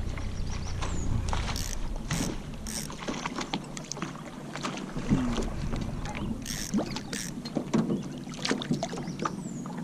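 Water lapping and splashing against a plastic kayak hull, with many small sharp splashes and knocks while a hooked fish is hand-lined up to the side of the kayak.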